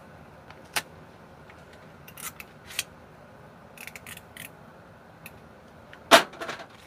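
Scattered light clicks and rattles of small tools and parts being handled on a workbench, with one sharper knock about six seconds in.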